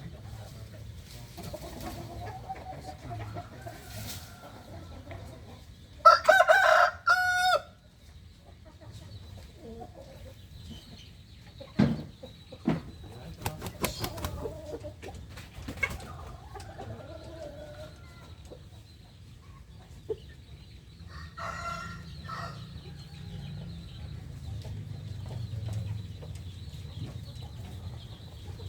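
Bangkok gamecock rooster crowing once, loud and about a second and a half long, about six seconds in, with a second, fainter call about two-thirds of the way through and a few short knocks between.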